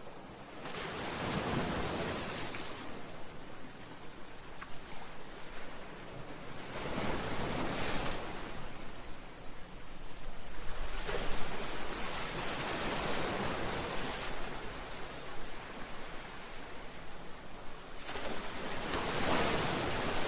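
Sea waves breaking against a seawall and breakwater: four surges of rushing, splashing water a few seconds apart, with a softer wash of surf between them.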